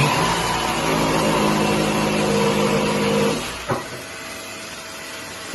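Milwaukee M18 Fuel D-handle cordless jigsaw cutting wood at its highest speed, with a vacuum drawing off the dust. The cutting noise drops about three and a half seconds in, followed by a single click, and a quieter running sound carries on.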